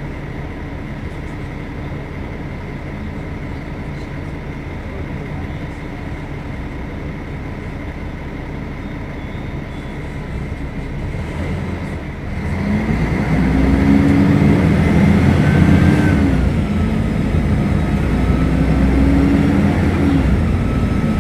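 Mercedes-Benz O500UDA bus diesel engine running steadily with a constant high whine. About twelve seconds in it gets louder, its note rising and falling back twice as the bus pulls away through the gears.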